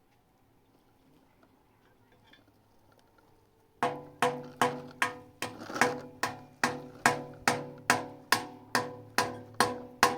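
Hammering: about four seconds in, a steady run of hammer blows begins, roughly two and a half a second, each with a short metallic ring.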